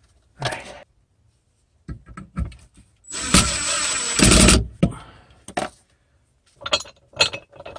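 Cordless power driver driving a screw into the post at a floor-beam leveler: a short burst about half a second in, then a steady run of about a second and a half near the middle with a high whine on top. Scattered knocks and clicks of the tool and fasteners come between the runs and near the end.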